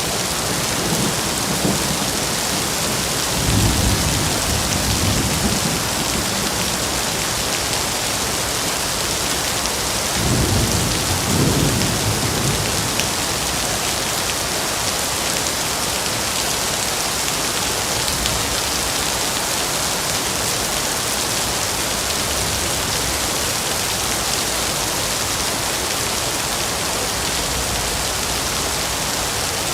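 Steady rain falling, with two low rumbles of thunder, the first about three and a half seconds in and the second about ten seconds in.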